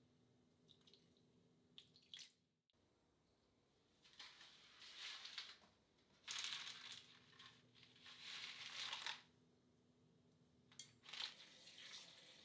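Faint kitchen handling sounds: a few light clicks early on, then several hissy bursts about a second long, with tap water running into a stainless steel pan near the end.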